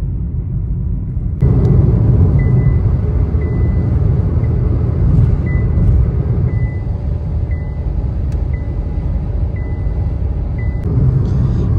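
Steady road and engine noise heard from inside a car cabin while driving on a highway, louder from about a second and a half in. A faint short high beep repeats about once a second.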